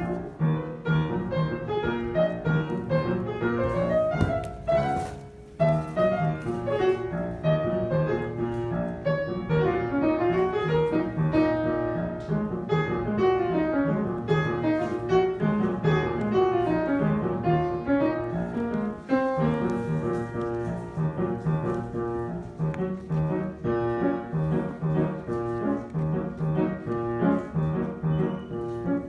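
Piano playing continuously, a melody running up and down over repeated chords, with a brief pause about five seconds in.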